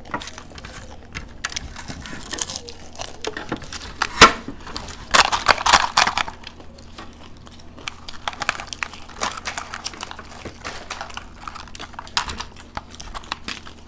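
Crisp fried panipuri shells crackling as fingers poke them open, with crunching and chewing: a run of small crackles and clicks. There is one sharp crack about four seconds in and a louder burst of crackling just after.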